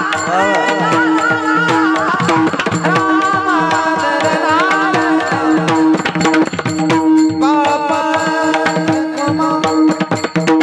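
Devotional kirtan music: hand-drum strokes over a steady held drone, with a gliding melody line above.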